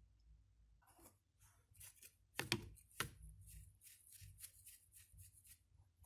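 Faint hand-handling sounds on a copper-clad PCB and its wooden fixture on the CNC bed: a string of light rubs and scrapes, with two sharper clicks about half a second apart midway.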